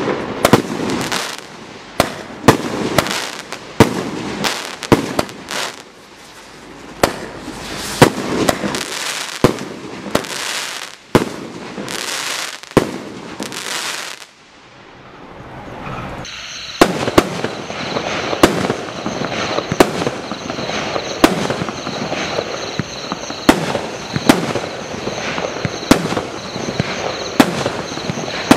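Two Primed Pyrotechnics 1.3G barrage cakes firing. Loaded Dice fires a rapid run of shots and bursts, about two a second with crackle, that stops about fourteen seconds in. After a short lull Aces High starts, firing sharp reports about once a second over a steady high tone.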